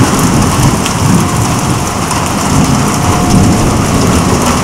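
Heavy rain pouring down in a thunderstorm, with a continuous low rumble of thunder underneath the hiss of the rain.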